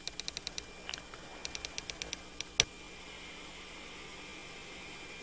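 Faint radio intercom static between transmissions: a run of quick clicks over the first two seconds and one sharper click, then a steady hiss with a thin high whine.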